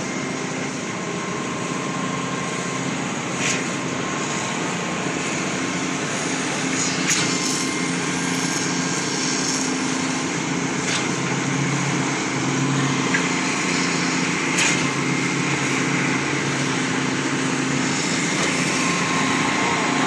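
Construction machinery engine running steadily, with a few brief clicks over it.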